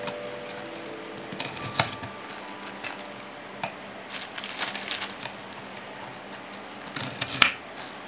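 A knife and sponge ladyfinger biscuits tapping and scraping on a wooden cutting board as the biscuits are trimmed and set down, in irregular light clicks. The loudest tap comes near the end.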